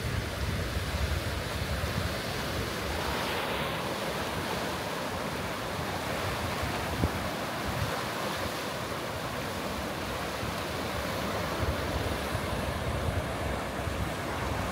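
Small waves breaking and washing over a rocky shore shelf, a steady hiss of surf. Wind buffets the microphone with low rumbling gusts at the start and again near the end.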